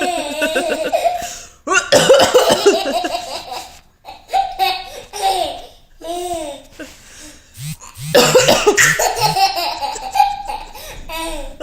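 A woman coughs in two fits, about two seconds in and again around eight seconds in. A baby laughs in long fits between and after the coughs, laughing at the coughing.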